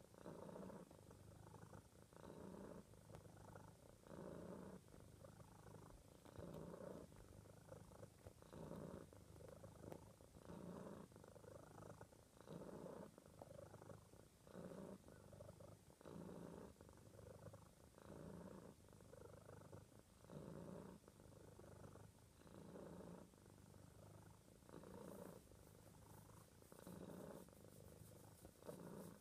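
Tabby cat purring, a steady low rumble that goes on and on and swells and eases with each breath, strongest about every two seconds.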